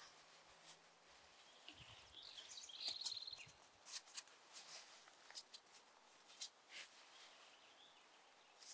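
Faint rustling and scratching of nylon webbing being handled and pulled through a loop around a rolled closed-cell foam sleeping pad, in short scattered clicks. A short high trill sounds about three seconds in.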